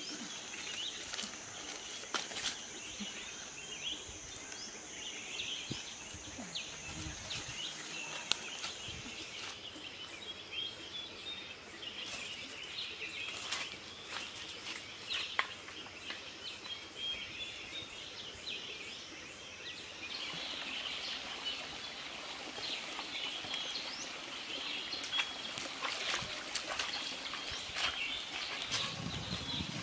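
Forest ambience: birds chirping over a steady high drone that stops about a third of the way in, with scattered light rustles and knocks of barefoot footsteps on dry leaves and stones.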